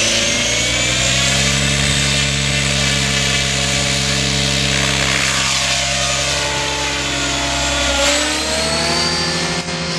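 Electric 700-size speed helicopter (Suzi SS 16s, on a 16-cell battery) with its motor and main rotor whining up to head speed in the first second, then running at a steady pitch. About eight seconds in, the tone shifts and briefly gets louder as it lifts off and climbs away.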